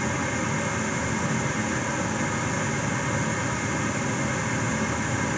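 Gas furnace draft inducer fan running with a steady, even hum and rush of air as the furnace retries its start-up sequence.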